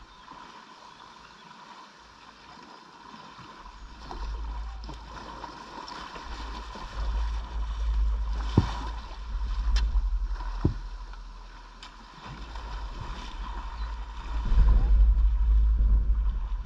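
Water sloshing and splashing around a kayak as it is paddled, with a few sharp knocks in the middle. A low rumble swells and fades twice.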